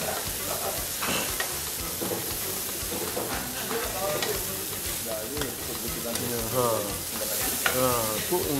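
Seasoned chicken strips sizzling on a hot flat-top griddle, with a spatula stirring and scraping them across the plate in short clicks.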